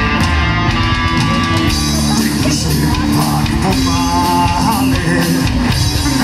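Folk-metal band playing live at full volume: electric guitars, bass and drum kit with a steady beat, with a singer's voice over the top.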